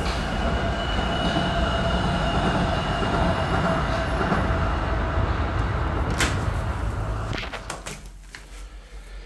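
Wuppertal Schwebebahn suspended monorail train running past: a steady rumble with a thin high whine over it and a few sharp clicks, then fading away about seven and a half seconds in.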